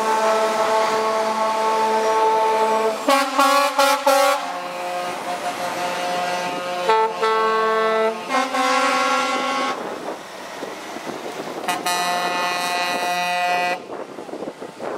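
Truck air horns blowing, several tones sounding together as chords: long blasts, a quick run of short toots about three to four seconds in, a change of chord around eight seconds, and a last long blast that stops about a second before the end.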